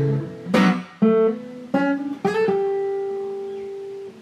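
Acoustic guitar played without singing: a strummed chord, then a few single picked notes, the last one left ringing and slowly fading for nearly two seconds.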